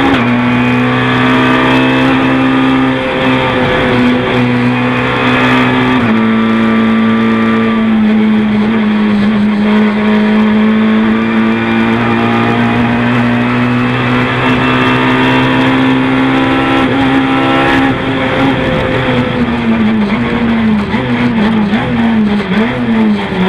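Renault Clio 3 rally car's engine at full throttle, heard inside the cabin: the revs step down with a gear change at the start and another about six seconds in, then climb and hold high. Near the end the revs fall in several quick dips and blips, as the car brakes and downshifts.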